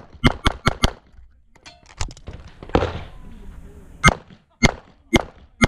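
CZ 75 SP-01 pistol shooting: four rapid shots in under a second, then, after a pause of about three seconds with a few faint clicks, four more shots about half a second apart.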